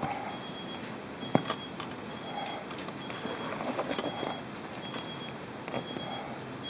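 An electronic beep repeating evenly a little faster than once a second, each a short high two-tone chirp. A single sharp click about a second and a half in.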